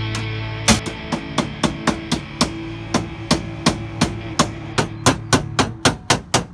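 Hammer blows on sheet steel as a panel is shaped by hand: a steady run of sharp strikes, about four a second, starting under a second in and coming closer together near the end, over background music that fades out.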